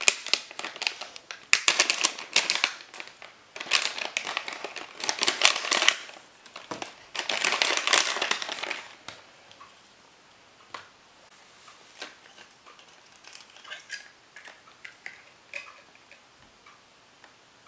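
Plastic blind-bag packet being torn open and crinkled in the hands: loud bursts of crinkling over the first nine seconds, then only scattered quiet clicks and taps as the toy egg inside is handled.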